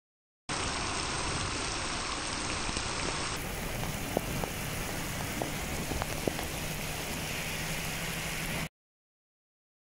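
Heavy rain pouring onto a paved road: a steady hiss of downpour with a few sharp taps of nearby drops in the middle. It starts half a second in and cuts off abruptly near the end.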